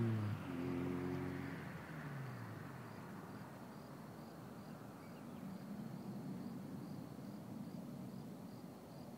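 Honda del Sol Si's 1.6-litre D16Z6 VTEC four-cylinder, fitted with a cold air intake and aftermarket exhaust, pulling away down the road; its note breaks and drops in pitch just after the start, then fades steadily into the distance. A cricket chirps faintly and evenly, about twice a second.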